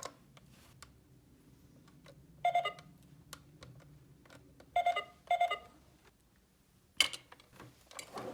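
Toy cash register beeping as its buttons are pressed: one short electronic beep about two and a half seconds in and two more around five seconds. A sharp plastic click follows near the end.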